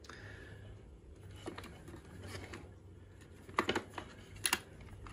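Plastic Fisher-Price Chatter Telephone toy being handled and turned over, giving light plastic clicks and knocks: one about a second and a half in, a quick cluster of three past the middle and two more near the end.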